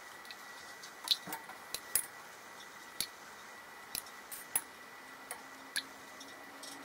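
Metal spoon clinking and scraping against the sides of a stainless steel pot while stirring milk: about ten sharp, irregular clicks.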